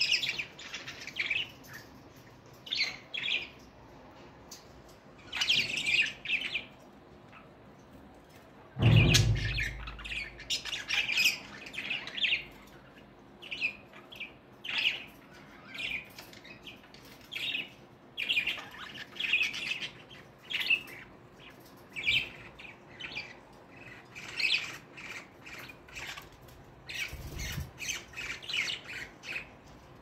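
Budgerigars chattering in short, repeated squawks and chirps while one feeds the other beak to beak. A dull low bump about nine seconds in is the loudest single sound.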